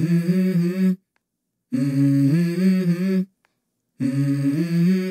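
Background music: a wordless hummed vocal melody in three short phrases, each followed by a moment of dead silence.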